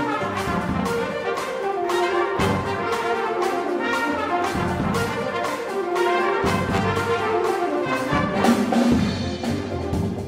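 Jazz big band playing full ensemble, with the brass section to the fore over a steady beat.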